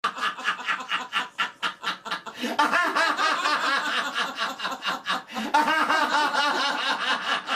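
People laughing: quick rhythmic ha-ha pulses at first, then longer, higher rolling laughs from about two and a half seconds in, with a brief pause just past five seconds.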